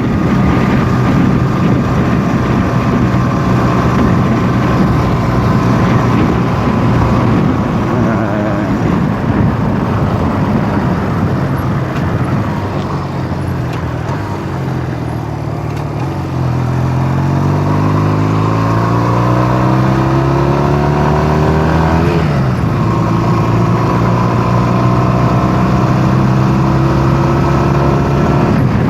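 Honda Rebel 250 motorcycle's air-cooled parallel-twin engine running under way. About halfway through it eases off, then the revs climb for several seconds, break briefly at a gear change, and settle steady again.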